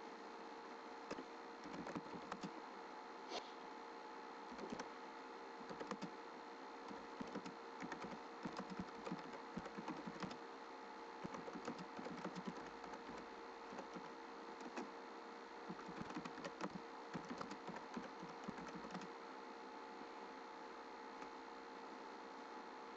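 Computer keyboard typing in irregular runs of keystrokes over a faint steady hum; the typing stops a few seconds before the end.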